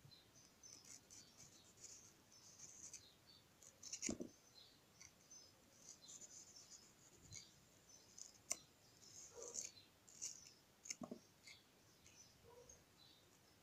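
Faint, crisp cuts and scrapes of a small carving knife slicing through watermelon rind, with a few sharper ticks.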